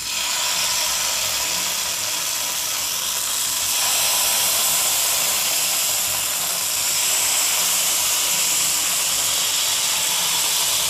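Masala-coated seer fish steaks sizzling on a hot, lightly oiled flat iron tava as they are laid down one by one: a steady hiss that grows a little louder about four seconds in as more pieces go on.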